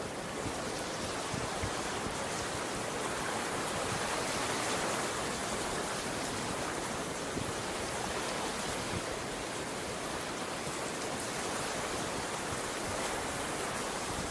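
Ocean waves washing onto the beach: a steady rushing wash that swells gently a few seconds in and eases again.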